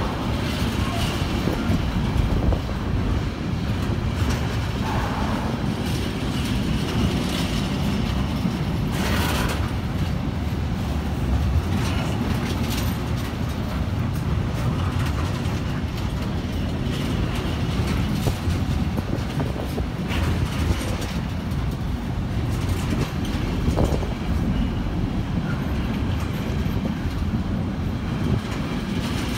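Intermodal freight train's container wagons rolling past at close range: a steady low rumble of steel wheels on rail, with a few sharper clanks over the rail joints, the loudest about nine seconds in.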